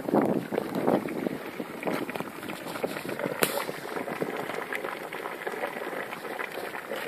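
Geothermal hot water bubbling up through holes and cracks in paving stones: a dense, continuous crackle of small pops, with one sharper pop about three and a half seconds in.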